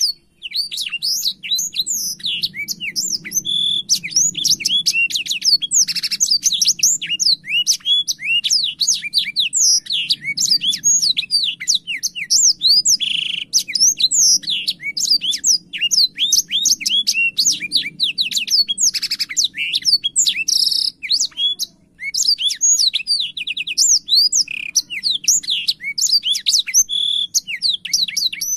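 A blackshot songbird in full, nonstop song: a rapid string of varied sweeping and chattering notes, with a brief break about three-quarters of the way through.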